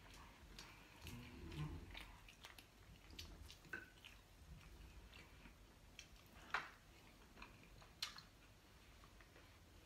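Faint chewing and mouth clicks of a person eating, at irregular intervals, with a couple of sharper clicks in the second half.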